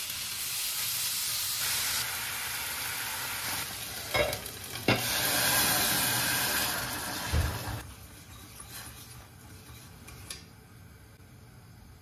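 Chicken döner slices sizzling as they fry in a hot oiled pan, with a few sharp knocks of pan and utensils about four and five seconds in and a dull thud a little later. After about eight seconds the sizzle drops to a faint hiss.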